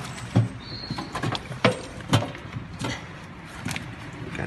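Irregular sharp clicks and knocks, about eight in four seconds, of small items being handled and rummaged in a metal safe box.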